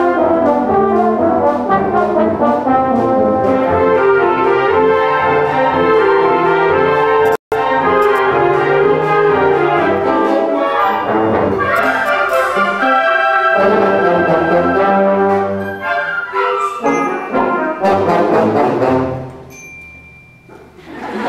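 Concert band playing, brass to the fore. The sound cuts out completely for an instant about seven seconds in, and the music dies away near the end.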